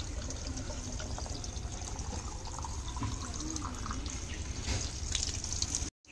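Running water flowing steadily, broken by a brief dropout near the end.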